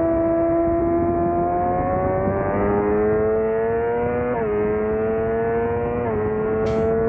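Suzuki GSX-R600 inline-four sport bike engine heard onboard under track riding. It holds a steady pitch through the corner, then revs up as the bike accelerates, with a sudden drop in pitch at each of two upshifts, about four and six seconds in.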